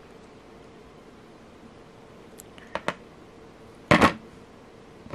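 Small metal clicks from chain nose pliers handling a jump ring as it is worked open: a couple of light clicks about halfway through, then a louder clack about four seconds in.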